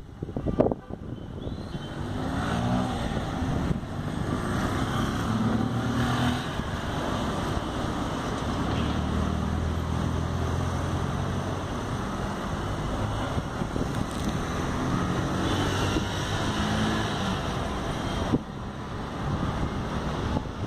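Street traffic at an intersection: car and motorcycle engines running and passing, with a steady engine hum strongest in the middle, and some wind on the microphone.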